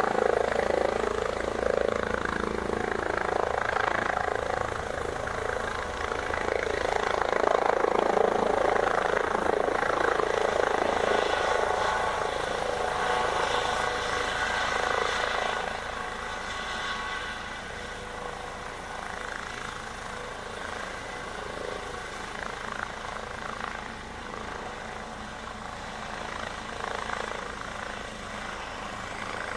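Helicopter with a shrouded tail rotor hovering low and landing, rotor and turbine engine running. The sound is louder for the first half and drops noticeably about halfway through as it settles onto its skids. The rotor is still turning after the drop.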